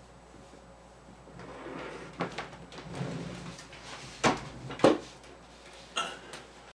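A person struggling and slumping down against a door: rustling and scuffling, then four sharp knocks and thumps, the loudest two about half a second apart in the middle.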